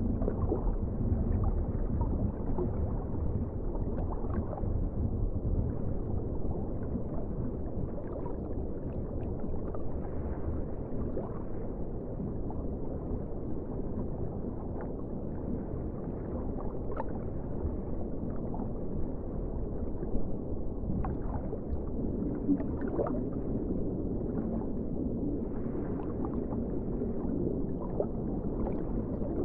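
Underwater ocean ambience: a steady, muffled low rumble of moving water, with scattered faint clicks.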